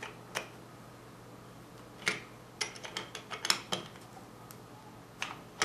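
Sharp, irregular metallic clicks and clinks of an 11 mm wrench working the throttle shaft nut on a Weber 42 DCNF carburettor, with a quick cluster of clicks in the middle.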